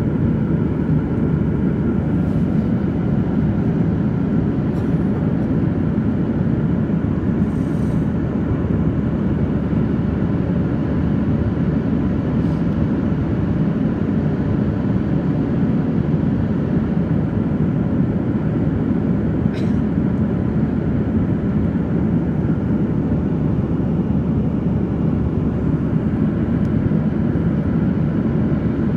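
Steady cabin drone of a Boeing 737-800 in flight, a low, even rush of engine and airflow noise, with a few faint ticks now and then.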